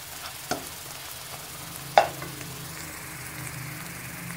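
Scrambled eggs sizzling in oil in a non-stick wok while a plastic slotted spatula stirs and scrapes them. There is a small knock about half a second in and a sharp knock of the spatula against the pan about two seconds in.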